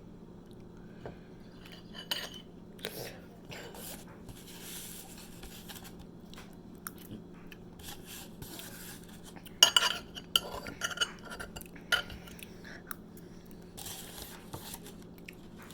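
Scattered clinks and clatter of a plate and utensils with some eating sounds while a hoagie is eaten, the loudest knocks about ten seconds in and again near twelve seconds, over a steady low hum.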